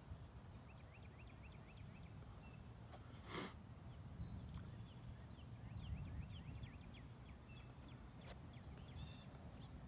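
Faint outdoor ambience: small birds chirping in quick runs of short calls over a low wind rumble on the microphone, with a brief breathy whoosh a little over three seconds in.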